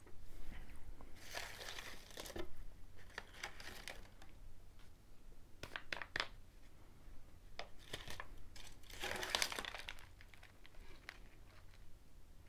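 Snack packaging crinkling and rustling as it is handled, in several short bursts; the longest comes about nine seconds in.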